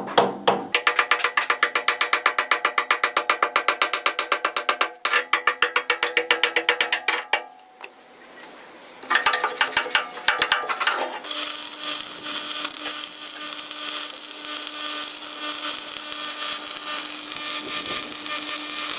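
Rapid, evenly spaced hammer blows on steel, about six a second with a metallic ring, stopping twice for short gaps. From about eleven seconds in, a continuous steady metalworking noise with a low hum takes over.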